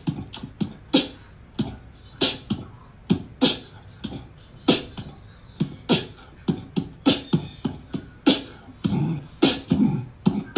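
Beatboxing: a run of sharp mouth-made clicks, hisses and low thumps, about two a second in an uneven rhythm.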